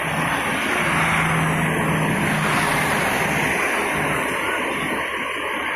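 Parked fire engine's engine running steadily, a continuous rumble with a low hum that holds for a couple of seconds.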